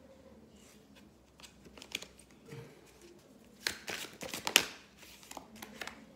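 Oracle cards being handled and shuffled in the hand: soft scattered rustles and taps, then a brief run of sharper card snaps and slaps about four seconds in.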